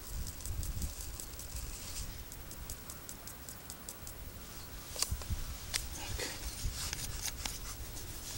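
Light clicks, ticks and crinkling as a mint tea bag and its paper wrapper are handled over a plastic camping mug, with a low wind rumble on the microphone.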